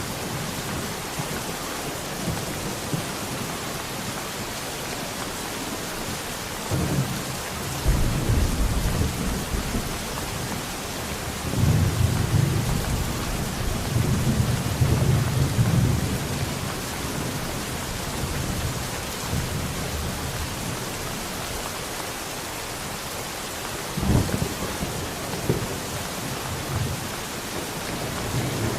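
Steady rain with thunder rolling over it: a low rumble about seven seconds in, a longer roll from about twelve to sixteen seconds, and a shorter clap near twenty-four seconds.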